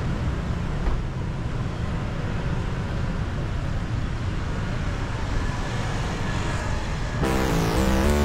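Steady street traffic noise, with music starting abruptly about seven seconds in.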